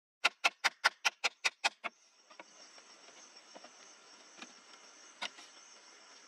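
Rapid chops of a small chopping knife into a green bamboo pole, about five strikes a second, stopping about two seconds in. After that a steady high insect drone, with a few light knocks as the pole is handled.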